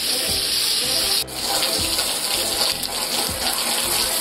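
A jet of water from a hose spraying onto the outdoor unit of a split air conditioner, washing its condenser fins and fan grille: a steady hiss of spray and splashing on metal. It breaks off briefly about a second in. Background music runs underneath.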